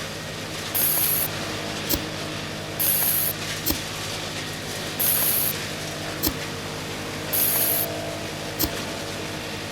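Small electric motor in a model machine running steadily with a hum. In a repeating cycle about every two seconds there is a sharp click and a brief high hissing scrape.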